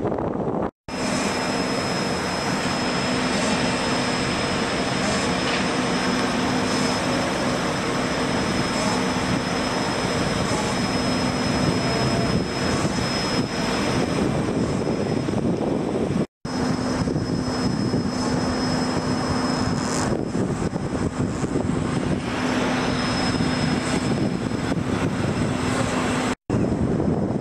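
Steady drone of diesel road-paving machinery, an asphalt paver and road rollers, running at a constant pitch. The sound drops out briefly three times: near the start, about midway and near the end.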